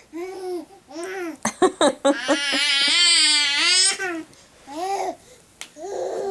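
Baby babbling in short rising-and-falling coos. About two seconds in comes one long, wavering high-pitched squeal lasting about two seconds.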